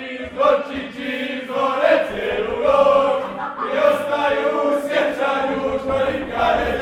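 A group of people singing together in unison, with long held notes.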